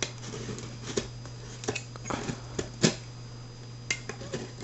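Cut-open cardboard shipping package being handled and pulled open by hand: scattered clicks and rustles of cardboard and packaging, with one sharper snap a little before three seconds in, over a steady low electrical hum.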